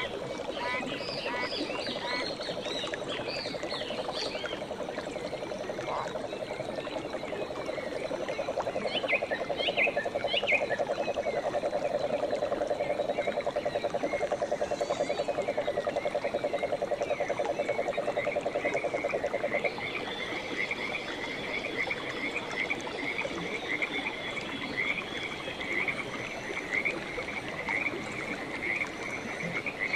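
Jungle wildlife calling: a fast, even pulsing trill low in pitch that cuts off about two-thirds of the way through, after which a rapid, steady chirping higher in pitch carries on. Scattered whistling calls sound over it in the first ten seconds or so.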